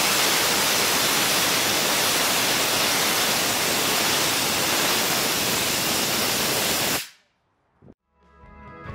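CO2 cold gas thruster firing: a steady rush of gas jetting from the nozzle that cuts off abruptly about seven seconds in. Music fades in near the end.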